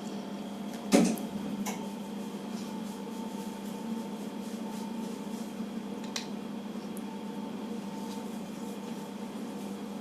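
Steady indoor hum, with a single sharp knock about a second in and a few faint clicks.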